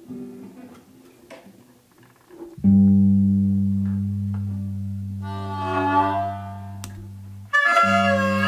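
Acoustic guitar: a few quiet plucks, then about two and a half seconds in a low note is struck and left to ring, fading slowly. A wavering higher melody rises over it briefly, and near the end a new low note is struck with a higher wavering melody line on top.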